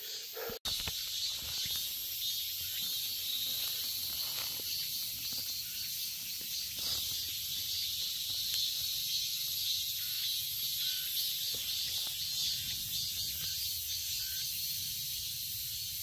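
A steady, high-pitched chorus of insects chirring, with a brief dropout about half a second in.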